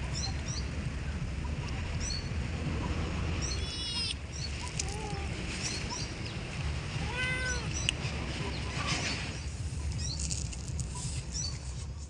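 Stray cats meowing: two clear meows, a high one about three and a half seconds in and a longer arched one about seven seconds in, with short high chirps scattered between them over a steady low rumble.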